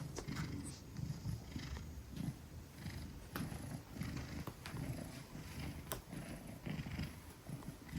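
Maine Coon cat purring deeply and steadily, the low rumble swelling and easing over and over, with a few faint clicks.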